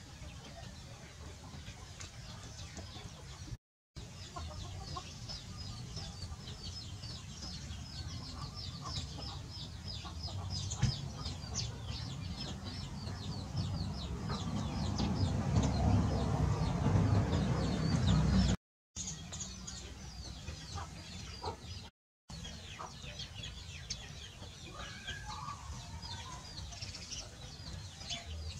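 Chickens clucking and calling in the background, with a low rumble that swells through the middle. The sound cuts out briefly three times.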